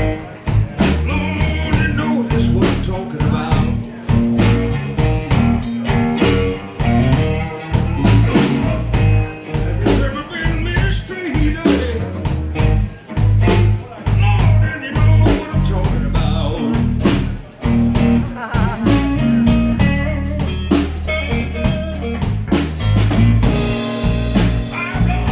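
Blues-rock music: guitar over a steady bass and drum beat.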